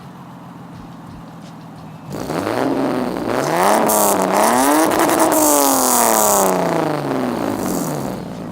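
A Lexus IS300's 2JZ straight-six, warm, through a stock exhaust with catalytic converters, a MagnaFlow muffler and dual tips. It idles steadily, then about two seconds in it is revved up in two rising pulls. The revs fall away gradually and it settles back to idle near the end.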